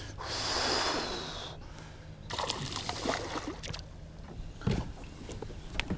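A hooked bass thrashing and splashing at the surface right beside a kayak, in two bursts of a second or so, followed by a couple of sharp knocks near the end.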